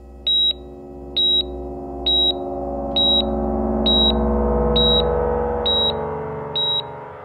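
Electronic soundtrack: a short, high, pure beep repeating about once a second, eight times, over a low synthesizer drone that swells toward the middle and then fades.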